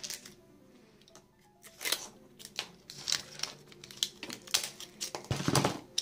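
Small clicks and scrapes of a cheap smartphone being taken apart by hand with small tools, parts being pried and lifted out, with a longer, louder scrape near the end.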